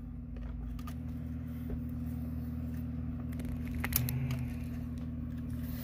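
A steady low mechanical hum, with a few light clicks as wires and dash trim are handled.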